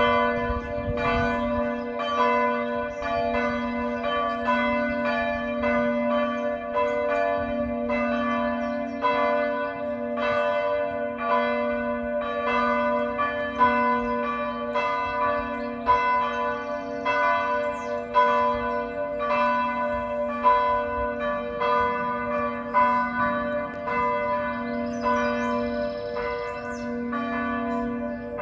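Partial peal of the Maredsous Abbey church's swinging bronze bells, cast by Causard of Tellin: several bells swinging and striking in overlapping succession, about three strokes every two seconds, over a steady low hum.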